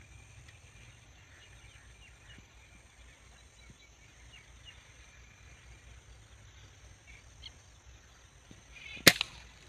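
A single air rifle shot about nine seconds in: one sharp crack with a smaller second pop right after it. Before the shot there is only a faint outdoor background.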